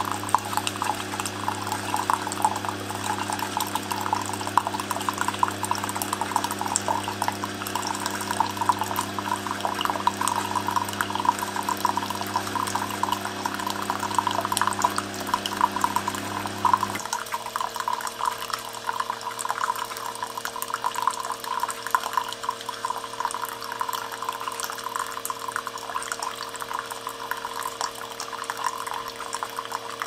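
A Keurig K-Duo brewing a pod cup: a thin stream of coffee pours and splashes steadily into a ceramic mug over the low hum of the brewer's pump. The hum cuts off about two-thirds of the way through while the stream keeps running.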